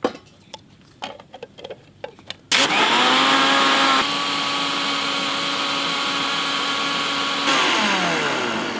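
A few light knocks, then an electric mixer-grinder blending a watery lemon-and-sugar mixture in its plastic jar. It is switched on about two and a half seconds in with a rising whine and runs steadily, a little quieter after about a second. Near the end it is switched off and its whine falls as the motor spins down.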